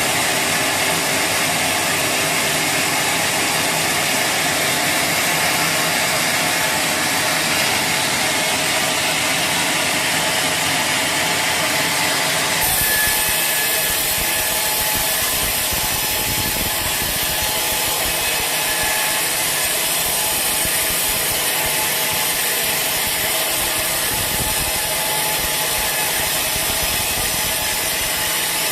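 Sawmill saw cutting through a teak log: a loud, continuous sawing noise. Its character changes abruptly about twelve seconds in.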